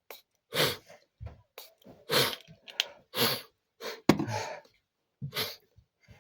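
A person with a head cold and runny nose rinsing out their nose: five short, sharp hissing sounds through the nose, about a second apart.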